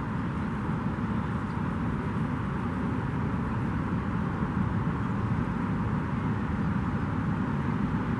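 Steady, low outdoor background rumble with no distinct events.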